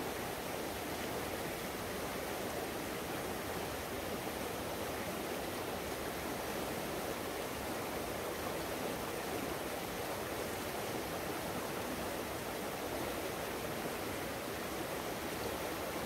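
Fast-flowing river rushing steadily, an even wash of running water with no change in its rush.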